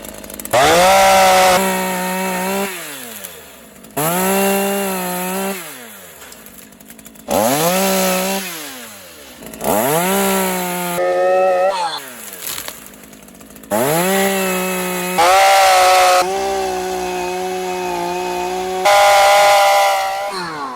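Stihl MS212 two-stroke chainsaw cutting dead fig branches, revved to full throttle about six times, its pitch sagging under load in each cut and falling back to idle between them.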